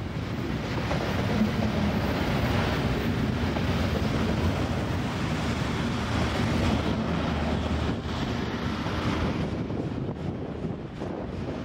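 Wind buffeting the microphone over the low rumble of a container freight train rolling past.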